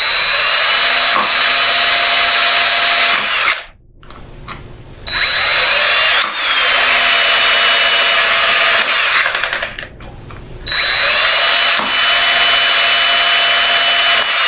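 Cordless drill with a 1/8 inch bit drilling vent holes through a plastic fuel cap, in three runs of about four seconds each with short pauses between them. The motor whine drops slightly in pitch soon after each start.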